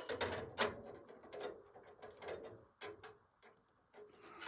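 Irregular light clicks and scraping of electrical wires being handled, with a few sharper clicks near the start.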